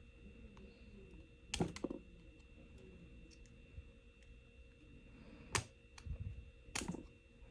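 A handful of short, sharp plastic clicks and taps as the snap-clip plastic housing of a Toyota remote head key is pried at. Two come close together about a second and a half in, and several more near the end.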